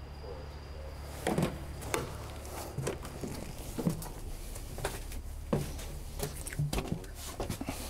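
Footsteps and irregular knocks as people climb the door steps into a Cessna 401's stripped cabin and move about inside, over a steady low hum. The knocks start about a second in.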